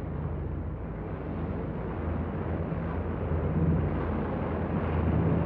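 Steady low drone of propeller aircraft engines under a rumbling noise, swelling a little in the second half.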